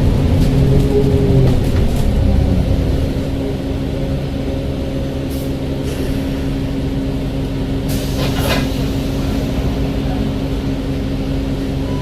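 Alexander Dennis Enviro 400H hybrid bus running, a steady drivetrain hum with a whine falling in pitch over the first couple of seconds, then a short burst of hiss about eight seconds in.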